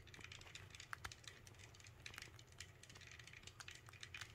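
Pet rat chewing a snack: faint, quick, irregular crunching clicks, several a second.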